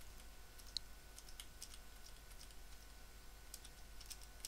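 Faint, irregular clicks of computer keyboard keys being pressed one at a time, as karaoke syllable timings are nudged step by step.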